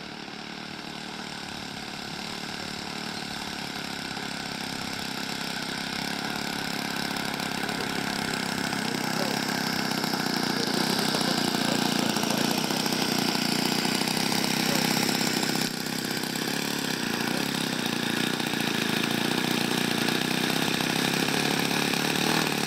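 The combustion engine of a 1:6 scale radio-controlled Arado 196 model running at low throttle as the plane taxis. It grows steadily louder over the first ten seconds or so as the model comes closer, then holds level, with a brief dip about two-thirds of the way through.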